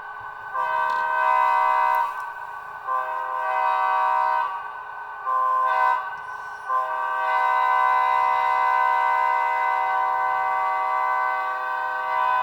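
Bachmann GP35 model diesel locomotive's WOW Sound DCC decoder playing its air horn through the onboard speaker. It gives two long blasts, a short one, then a long one held about six seconds: the grade-crossing signal.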